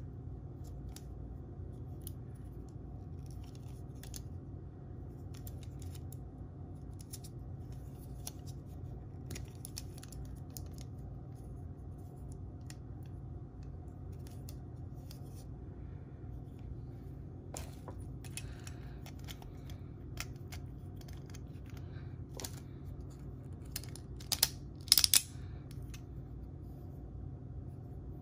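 Hard plastic parts of a Judgement Joker Beyblade Burst top clicking and rattling as they are handled and twisted together, over a steady low background hum. A quick cluster of louder, sharp clicks comes near the end as the parts lock together.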